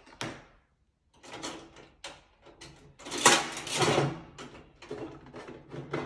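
Token-operated needle-exchange vending machine being worked by hand: clicks and clunks of a token going in and the dispensing mechanism turning, with a louder clattering rattle lasting about a second, about three seconds in, as a pack is dispensed.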